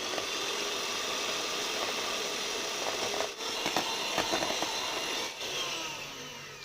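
Electric beater running steadily, whisking egg whites in a bowl up to stiff peaks. The sound starts abruptly and fades down near the end.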